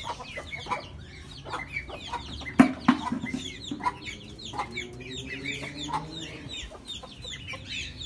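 Chickens clucking amid a constant chatter of quick, high, falling chirps from chicks or other small caged birds, with two sharp knocks about two and a half seconds in.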